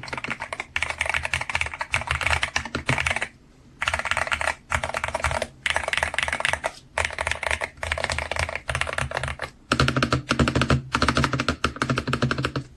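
Fast typing on a Hero 68 HE magnetic-switch keyboard fitted with black-and-yellow magnetic switches and five layers of sound-dampening fill. A dense run of key clacks is broken by several brief pauses.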